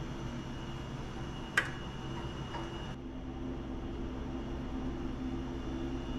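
Steady mechanical hum with a few held low tones and a faint high whine, broken once by a sharp click about one and a half seconds in.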